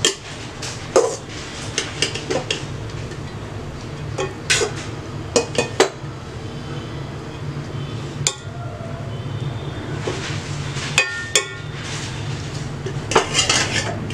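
Metal ladle scraping and knocking against a metal pot as cooked basmati rice is spread in a layer, with scattered clinks throughout. A steady low hum runs underneath.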